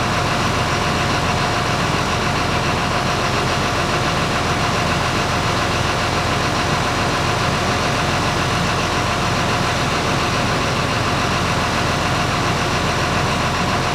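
An engine idling steadily, with an even hum and no change in speed.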